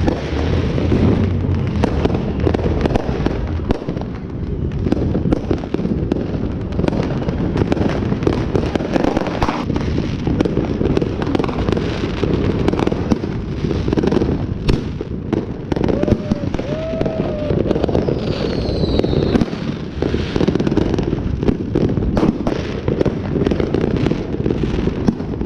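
Many fireworks and firecrackers going off at once in a continuous barrage of bangs and crackling.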